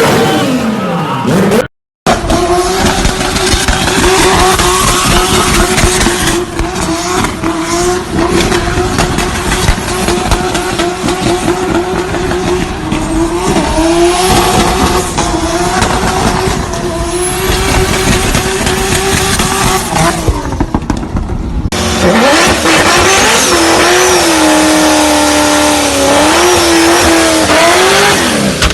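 Tuned turbocharged car engines at high revs across several short clips. For most of the time an engine is held at a steady high rpm with a rapid crackling over it; near the end another engine revs up and down.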